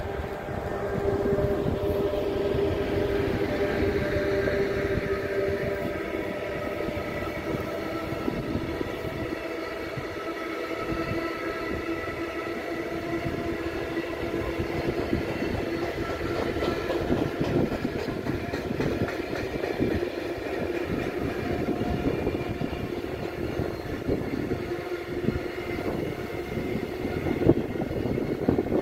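EU07 electric locomotive passing, followed by a long container freight train rolling by: steady rumble and clatter of wagon wheels on the rails, with sustained tones running through it.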